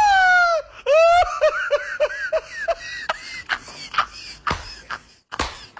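A high-pitched voice laughing: a long drawn-out note sinking in pitch, then a run of about eight quick 'ha' pulses that fade out. A few scattered sharp knocks follow.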